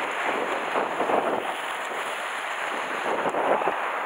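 Sea surf washing and splashing against rocks, with wind buffeting the microphone: a steady rushing noise that swells and eases.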